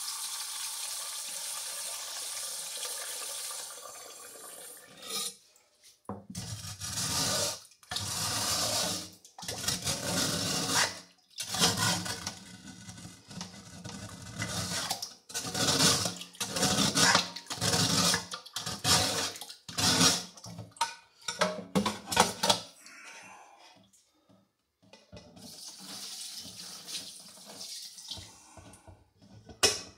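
Hot water running from a kitchen tap into a metal pot, then sloshed around in the pot in short, irregular bursts to rinse out undissolved sugar syrup. A steady stream of water runs again near the end.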